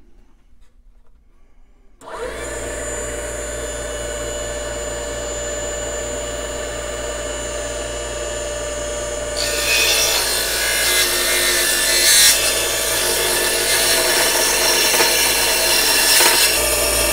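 Mini benchtop precision table saw starting up about two seconds in and running steadily. From about halfway its small blade is cutting into a block of mahogany, adding a louder, rougher sawing noise, until the saw stops at the very end.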